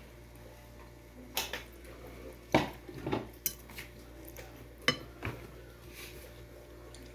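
Cutlery clinking and scraping against a plate while eating, in a few separate sharp clinks, the loudest two about two and a half and five seconds in.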